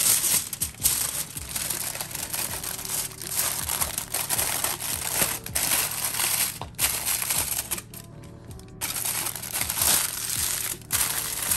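Aluminium foil crinkling and crumpling as it is folded and pressed by hand around a whole stuffed snapper, in irregular handfuls with a short lull about eight seconds in.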